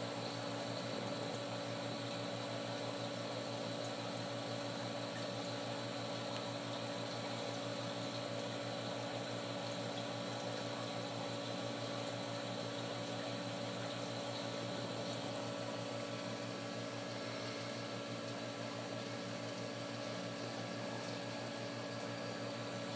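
Reef aquarium pump running: a steady hum of several fixed tones over an even hiss of moving water.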